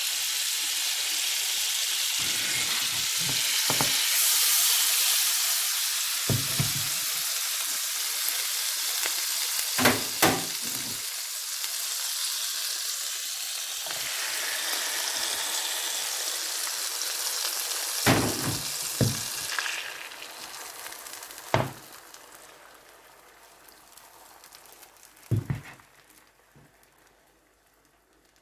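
Egg and bread frying in oil on a griddle, a steady sizzle with a few sharp knocks of a utensil against the pan. The sizzle dies away over the last several seconds.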